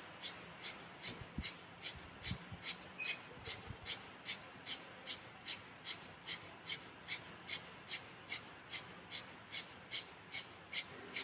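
Rapid, forceful pranayama breathing: short, evenly spaced breath strokes, about three a second, kept up steadily.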